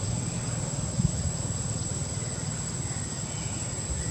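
Outdoor ambience: a steady high-pitched insect drone over a low rumble, with one short knock about a second in.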